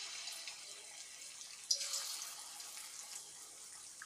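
Chicken pieces deep-frying in hot oil: a steady bubbling sizzle, loud at the start, surging again with a sharp crackle a little under two seconds in, then easing off.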